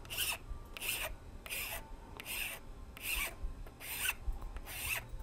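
Hand file rasping across the back edge of a plastic Glock magazine follower in about seven short, even strokes, a little more than one a second, rounding a small radius onto the edge.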